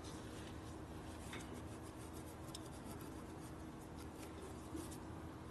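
Faint rubbing and a few light clicks of hand work over a steady low hum.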